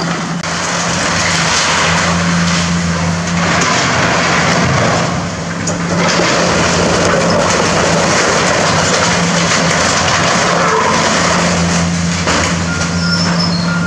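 Hydraulic excavator's diesel engine running steadily under load as its demolition grapple tears into the building, with crunching and clattering of sheet metal and debris.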